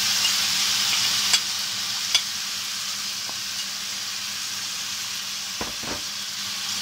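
Food sizzling steadily in hot frying pans as tomato sauce is scraped from a bowl onto fried meatballs with a metal spatula. Two sharp clicks of the spatula against the bowl come about one and a half and two seconds in, and a soft thump near the end.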